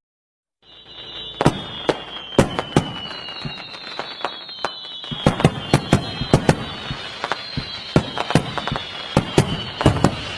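Fireworks going off after a brief silence under a second in: a dense run of sharp bangs and crackles over a steady hiss, with high whistling tones that slowly drop in pitch.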